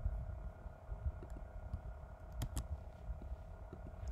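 Keyboard typing: a couple of sharp key clicks about two and a half seconds in, over a steady electrical hum and low rumble.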